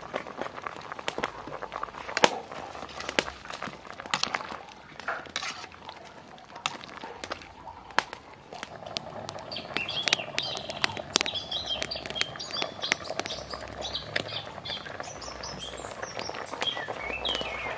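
Pot of vegetable soup boiling hard over a wood fire, with sharp pops and crackles throughout. Birds chirp from about halfway through.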